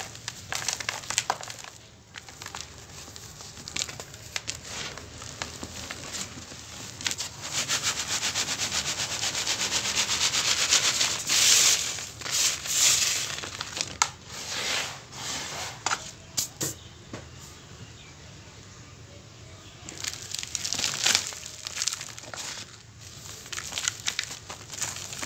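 Dry cement and sand chunks crumbled by hand, with grit and powder crackling and pattering onto a plastic colander. In the middle is a longer stretch of continuous gritty hiss as the colander of crumbs is shaken.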